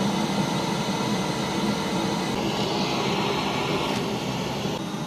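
Shop vac running steadily, drawing air through a perforated 3D-printed vacuum table that holds a newspaper flat. A higher hiss joins in for a couple of seconds partway through.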